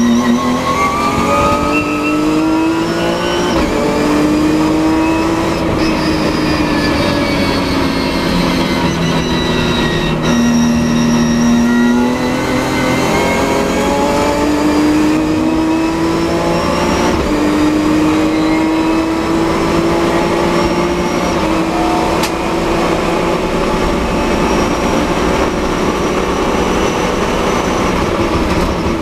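Nissan NISMO 370Z race car's V6 heard from on board at full throttle. The pitch climbs in each gear and drops sharply at each upshift, about a handful of times. In the first half it sags for a few seconds as the car slows for a corner, then it pulls through the gears again down a long straight.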